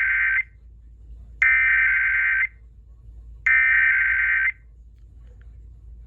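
Emergency Alert System SAME digital data tones: harsh, buzzy bursts of about a second each, with about a second of silence between them. One burst is ending as the sound begins, and two more full bursts follow, over a faint low hum.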